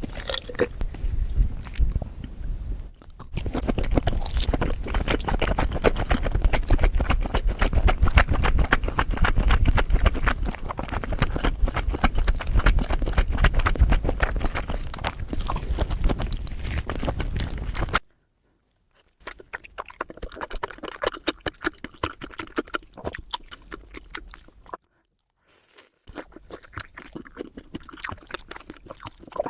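Close-miked mukbang eating: wet chewing and crunching with dense crackly clicks. The sound drops out completely twice for about a second past the middle, as at edit cuts.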